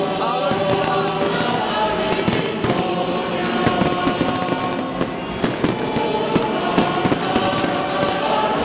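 Fireworks display going off: a dense, continuous run of crackling bangs and pops.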